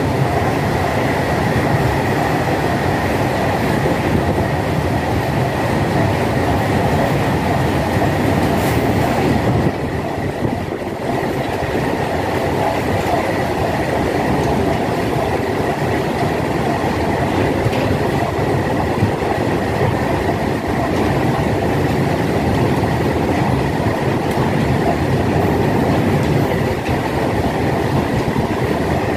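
A long train of open-top freight wagons passing at high speed: the steady loud rumble and clatter of steel wheels on the rails, with a thin high whine held throughout. The noise eases a little about ten seconds in.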